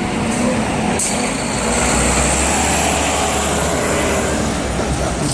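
A heavy vehicle's engine running loudly close by amid street traffic noise, swelling in the middle and fading just after the end.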